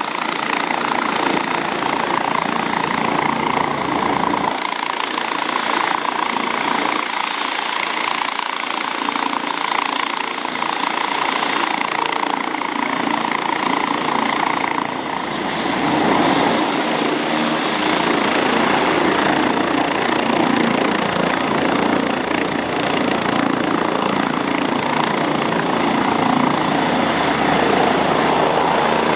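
Agusta Caweel CW-95 helicopter running steadily, with a dense continuous rotor and engine noise and a thin high whine that rises slightly about halfway through.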